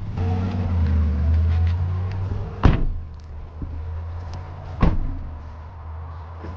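Car engine running with a low hum that stops about two and a half seconds in. Then a car door opens with a sharp click and is shut with a thump about two seconds later.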